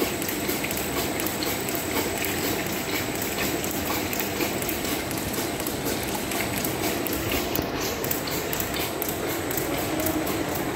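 Sludge churning in the flocculation tank of a screw press dewatering unit, with the machinery running steadily and a fast, even ticking at about four ticks a second.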